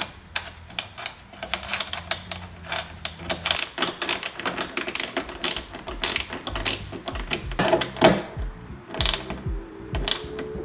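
Hand ratchet clicking in quick runs as it turns a hood strut's upper mounting bolt, with a few dull knocks of tool and metal in the second half.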